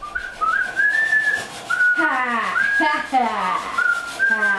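A child whistling a short tune in quick high notes, joined about halfway by several sliding voice sounds that fall in pitch.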